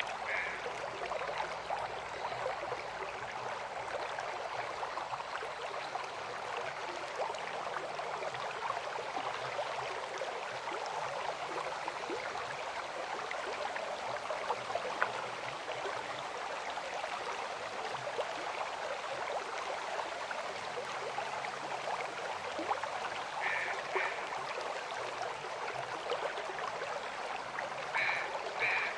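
River water flowing steadily, a continuous rushing babble. Short bird calls come through it twice in the last several seconds.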